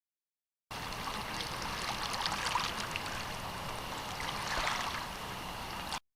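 River water flowing and lapping, a steady splashy rush with small crackles. It starts abruptly a little under a second in and cuts off suddenly near the end.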